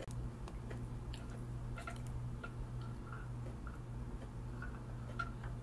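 Person chewing food with the mouth closed: soft, irregular mouth clicks and ticks over a steady low hum.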